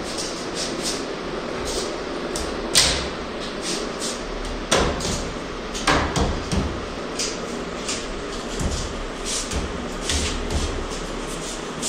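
Irregular knocks and clicks of hands working on a snooker table's wooden cushion rail, a few louder raps among them, over a steady hiss.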